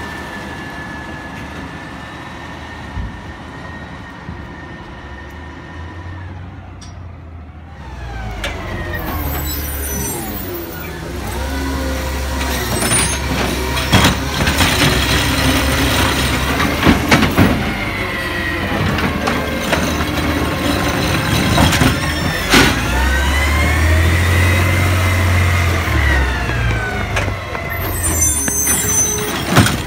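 Diesel garbage truck running, then pulling up with a hiss of air brakes. Its engine revs up and down to drive the hydraulic side-loader arm as it grabs and lifts a curbside recycling cart, with several sharp metal clanks.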